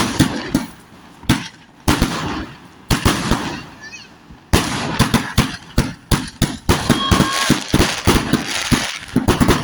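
Fireworks going off: several separate loud bangs in the first few seconds, then, from about four and a half seconds in, a dense, rapid crackle of many bangs in quick succession.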